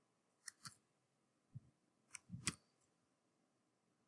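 Near silence broken by a few faint clicks: a pair about half a second in, one more, then a pair about two and a half seconds in, as handwriting is drawn on the computer screen.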